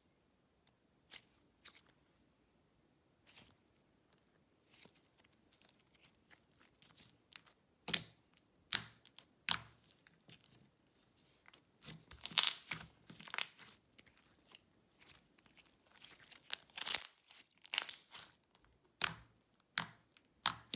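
Jelly slime being worked by hand, giving off scattered sticky clicks, pops and crackles. They start sparse and grow denser and louder about halfway through.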